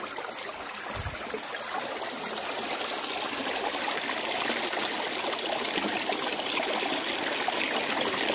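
Shallow stream water running and trickling over rocks, growing gradually louder.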